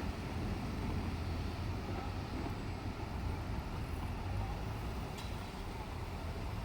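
Diesel railcar engine running, a steady low rumble that neither rises nor falls, with a faint click about five seconds in.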